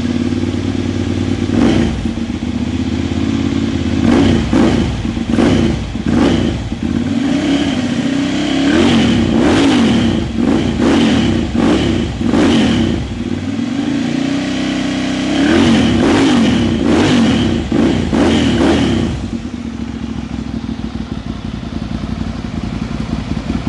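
Ducati Monster 795's two-cylinder L-twin engine, breathing through a LeoVince slip-on exhaust, idling and revved in a series of throttle blips, with rapid bursts between about 8 and 13 seconds and again between 15 and 19 seconds. It then settles back to a steady idle near the end. The sound is loud.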